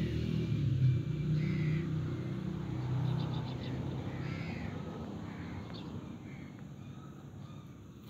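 A motor vehicle's engine rumbling, fading steadily as it moves away, with short bird calls over it.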